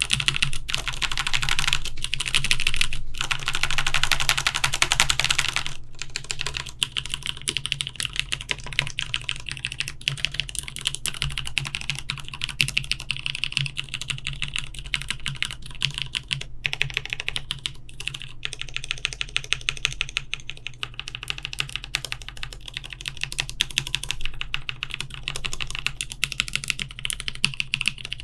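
Mechanical keyboard with Cherry-housing linear switches fitted with Kailh Pro Burgundy stems, on an acrylic plate, being typed on fast. For about the first six seconds it is a dense, louder mashing of many keys at once, then a steady run of quick keystrokes. The switches are on the clacky side.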